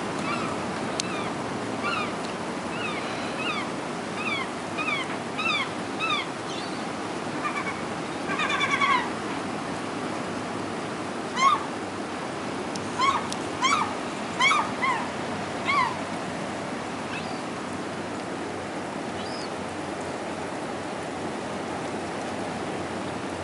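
A series of short, sharp bird calls, each dropping slightly in pitch, coming in clusters and stopping about two-thirds of the way through, over a steady rushing background of surf and rain.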